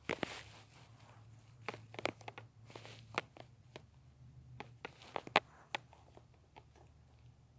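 Scattered light clicks and knocks at irregular intervals over a faint low hum, with no siren sounding.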